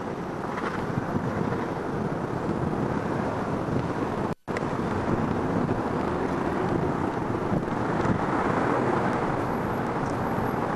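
Steady rumble of a moving car's road and engine noise, with a brief gap in the sound about four and a half seconds in.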